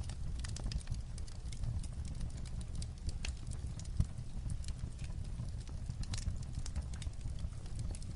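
Light rain on a roof mixed with a wood fire crackling: many irregular sharp pops and ticks over a low steady rumble, with one louder pop about four seconds in.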